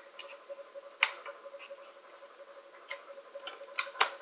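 Scissors snipping a thin plastic candy-mold tray: a handful of sharp clicks at uneven intervals, the loudest about a second in and near the end.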